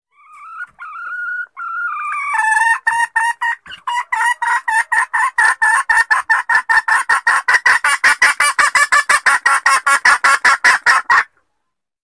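Junglefowl hen calling as a lure for males: a few drawn-out notes, then a fast cackling run of short clucks that quickens and cuts off suddenly near the end.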